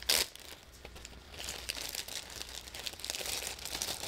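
Clear plastic zip-top baggie crinkling as a bundle of plastic diamond painting pens is pushed into it: a sharp rustle right at the start, then a run of crinkling from about a second and a half in.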